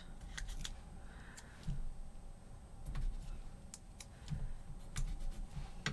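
Scattered light clicks and taps at irregular intervals as paper pieces and embellishments are picked up and placed on the work surface.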